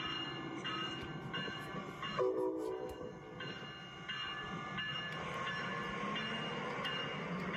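LEGO passenger train running on plastic track, with a short train-horn sound about two seconds in and a whine rising in pitch near the end as it speeds up.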